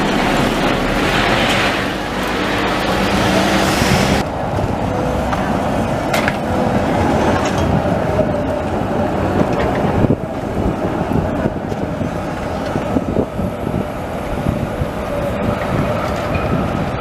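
Articulated city tram passing close by and pulling away: a steady rumble of steel wheels on rails and running gear, noisier for the first four seconds, with a few sharp clicks later on.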